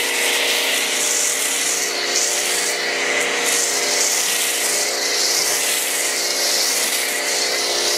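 Electric pressure washer running steadily, a constant hum under the loud hiss of its foam cannon spraying snow foam onto a car. The hiss swells and eases about once a second as the spray sweeps over the body.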